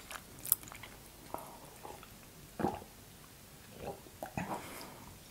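Soft, close-miked mouth sounds of eating: chewing and swallowing with scattered small wet clicks, then sips from a mug about four seconds in.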